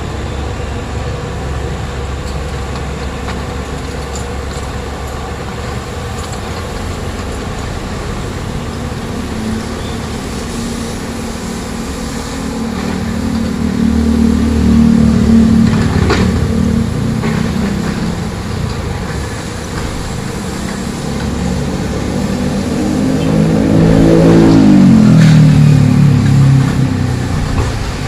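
Komatsu hydraulic excavator's diesel engine running and revving under load while demolishing a building, with a sharp crash a little past halfway and a few lighter knocks after it. Near the end the engine revs up to its loudest and then drops back.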